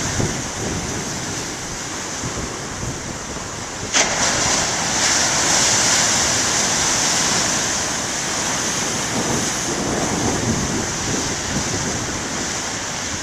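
Big ocean waves breaking and washing onto the shore, a continuous surf noise that swells louder about four seconds in, just after a sharp click.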